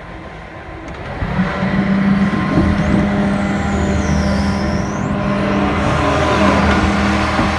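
John Deere 350 excavator's diesel engine running. It gets markedly louder about a second in, then runs steadily at the higher level.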